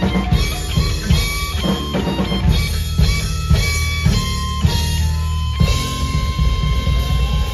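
Live heavy metal band playing: electric guitar riff in short rhythmic chords over bass guitar and drum kit. A little past halfway the guitar holds one long note while the drums keep going.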